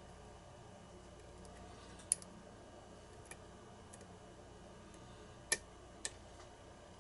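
Small, sharp metallic clicks from a lock pick and tension wrench working the pins inside an ASSA Abloy challenge lock's keyway. The clicks come scattered and irregular, loudest about two seconds in and again about five and a half seconds in.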